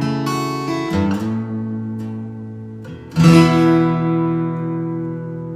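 Steel-string acoustic guitar playing a few chords without singing. A last chord is struck about three seconds in and left to ring, slowly fading.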